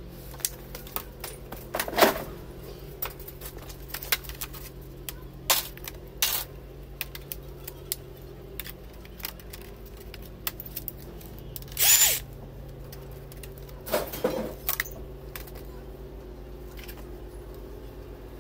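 Scattered clicks, snaps and clatter of laptop parts and hand tools as junk laptops are taken apart for scrap, with a few louder bursts, the longest a brief whir near the middle. A low steady hum runs underneath.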